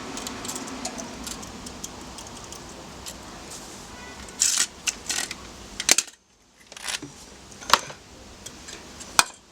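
Metal hand tools being handled and put down, clinking and clattering in a series of sharp knocks, the loudest about four and a half to five seconds in and near the end.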